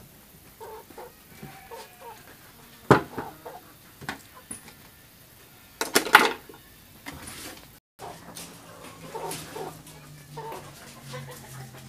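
Wooden chair knocking and clattering against a wooden workbench as it is handled and turned upside down: one sharp knock about three seconds in and a quick cluster of knocks about six seconds in. A faint steady low hum follows in the last few seconds.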